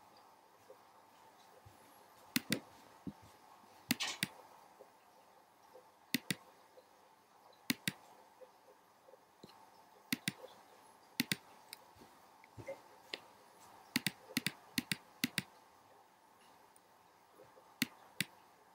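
Sharp clicks of a computer's pointer button, some single and some in quick pairs, over a faint steady hum.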